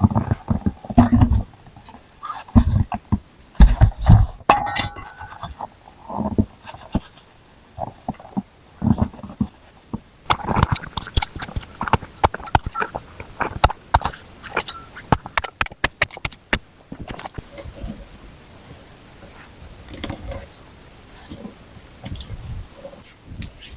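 Hand work on a shelter in frozen ground and wood: irregular heavy knocks and thumps in the first few seconds, then a dense run of sharp knocks, clinks and scrapes that thins out toward the end.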